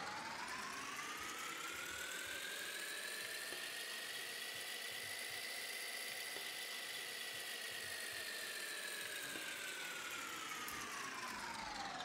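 Electronic sound effect: a buzzy synthesized tone with many overtones that glides slowly up in pitch to a peak around the middle, then slides slowly back down.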